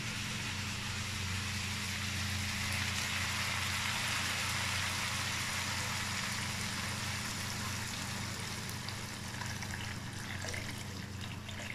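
Water poured in a steady stream from a metal pot into a wok of stir-fried chicken and green beans, splashing onto the food, easing off near the end. A steady low hum runs underneath.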